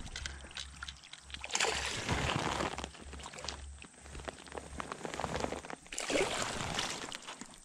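Water splashing and sloshing as a hooked bass is scooped into a wooden landing net, in irregular surges with scattered short knocks and rustles of close handling.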